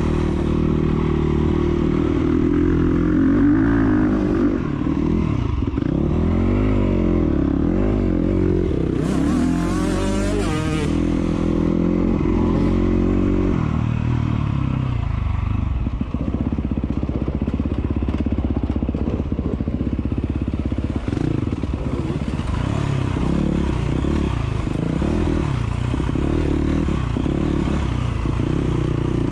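Enduro motorcycle engine running under load on an off-road course, its pitch rising and falling again and again with the throttle and gear changes.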